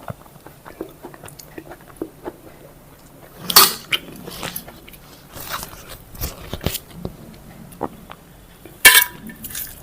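Chewing and mouth sounds of someone eating, close to the microphone, with many small smacks and clicks. Two louder sharp smacks come about three and a half seconds in and again near nine seconds.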